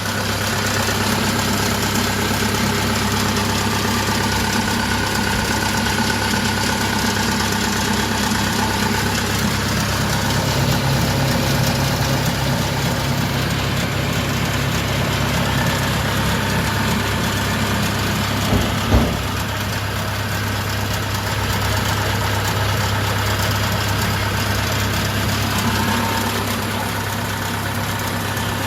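Kubota DC-70 combine harvester's diesel engine running steadily, with one short knock about two-thirds of the way through.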